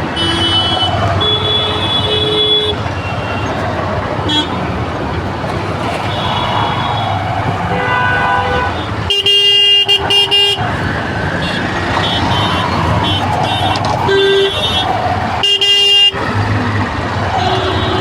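Road traffic in a jam with many vehicle horns honking over the engine and road noise. Two loud, longer horn blasts stand out, one about halfway through and another a few seconds later.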